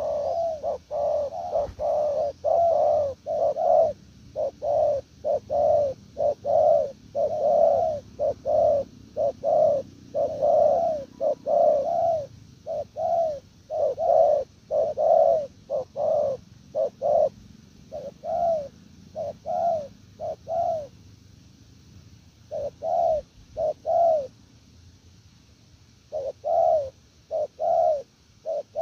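Spotted dove cooing: a long run of short coos in quick succession, each rising and falling in pitch. It breaks off twice near the end, with a short burst of coos between the pauses, then starts again.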